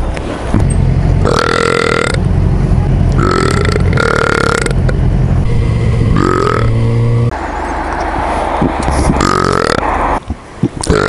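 A man burping loudly, several long, drawn-out burps one after another, picked up by a microphone inside his motorcycle helmet, with engine and wind noise beneath.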